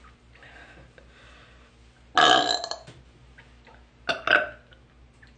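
A woman burping: one long, loud burp about two seconds in, then a shorter burp in two quick parts about four seconds in.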